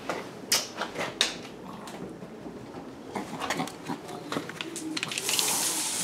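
Clicks and knocks of a uPVC kitchen door and its fittings being handled, closely spaced in the first two seconds and scattered after. A hiss rises near the end.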